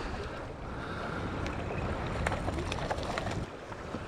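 Wind buffeting the microphone and water slapping the hull of a drifting fishing boat, a steady low rumble with a few light clicks of gear.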